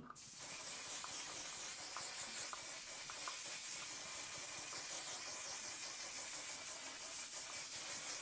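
One/Size On 'Til Dawn mattifying setting spray hissing in one long continuous mist as it is sprayed onto the face. The hiss is high and airy and swells slightly in small regular waves.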